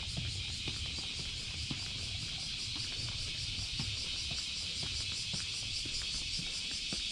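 Outdoor street ambience: a steady high hiss over a low rumble, with faint, irregular clicks.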